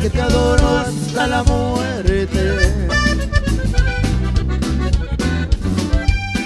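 Norteño band playing an instrumental passage: a button accordion carries the melody over a twelve-string bajo sexto, electric bass and drum kit, with a steady beat.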